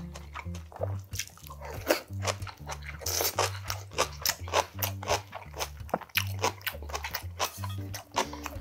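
Close-up crunching and chewing of cabbage kimchi, a rapid run of wet crunches. A soft repeating bass line of background music runs underneath.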